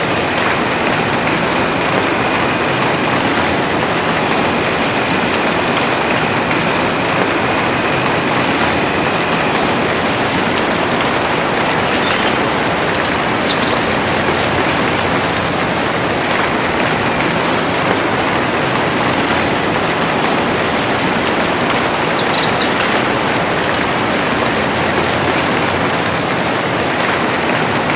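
Steady soft rain falling in a forest, an even hiss, with a constant high-pitched whine over it. Two short falling chirps sound about halfway through and again near two-thirds of the way.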